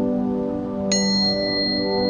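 A tuning fork struck about a second in, ringing on with a clear, steady high tone over a sustained ambient music drone.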